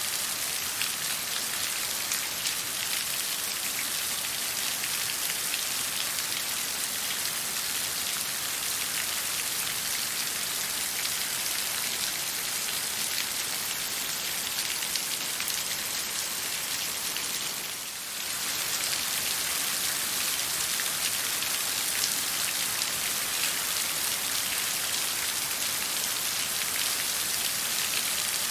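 Steady hiss of water with a dense patter of fine drops, dipping briefly in level about eighteen seconds in.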